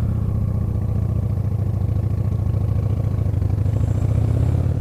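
Motorcycle engine running at a steady low pitch, with no clear change in revs.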